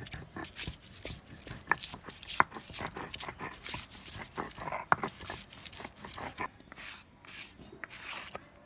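Stone grinding roller (nora) rubbing, knocking and clicking on a stone slab (sil) as garlic cloves and ginger are crushed into paste, in sharp, irregular strokes. The strokes thin out near the end.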